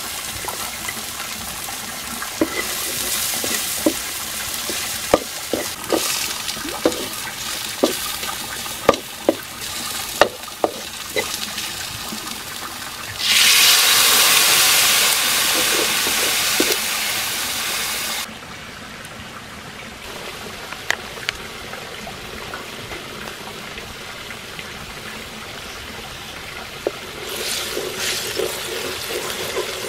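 Onions and garlic frying and sizzling in a hot wok, with a spatula clicking against the pan about once a second. About 13 seconds in, liquid is poured into the hot wok and hisses loudly for about five seconds, then drops to a quieter simmer; near the end, stirring and sizzling pick up again as sauce goes in.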